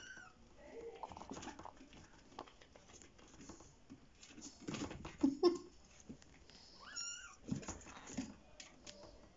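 Young kittens mewing: a thin, high mew right at the start and another about seven seconds in, with scuffling and scratching between as a kitten clambers at the rim of a plastic laundry basket.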